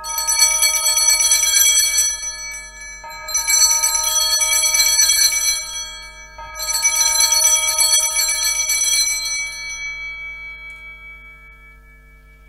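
Altar bells rung three times at the elevation of the consecrated host, marking the consecration. Each ringing is a bright, shimmering peal that stops, and the third dies away slowly over a few seconds.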